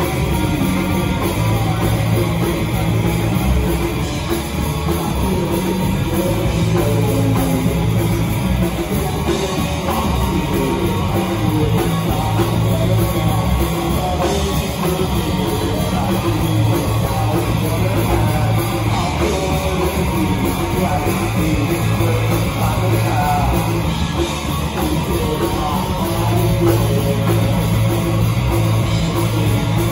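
A live rock band playing loud, with electric guitars and a drum kit.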